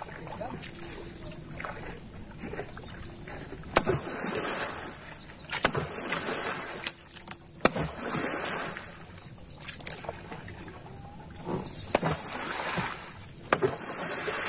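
A pole-mounted water beater plunged hard into the river beside a wooden canoe about six times, roughly every two seconds, each stroke a sharp smack followed by a splash. The water is beaten to scare tilapia into a gill net.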